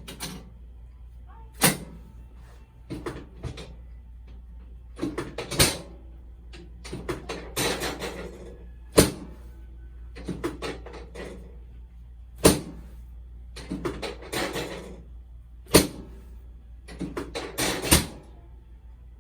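Chiropractic adjustment on a treatment table: about six sharp clacks a few seconds apart, with softer scuffing noises between them over a steady low hum.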